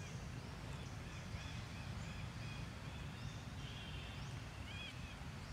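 Outdoor ambience: a steady low rumble with a string of short, high chirping calls, a little louder near the end.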